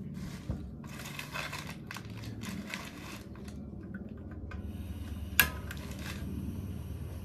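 Rustling and scraping as a portable butane camping stove and its pan are handled, with one sharp click about five seconds in, over a steady low hum.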